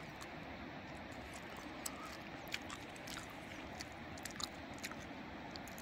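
Loud chewing, with scattered short wet clicks and crunches, over the steady rush of a river below.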